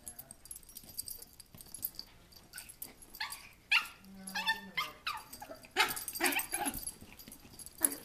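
Yorkshire terrier making short yips and whines while play-wrestling with a cat, in a string of brief sounds that come thickest and loudest about three-quarters of the way through.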